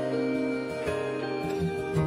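Worship band playing a slow instrumental passage with held, sustained chords and no singing.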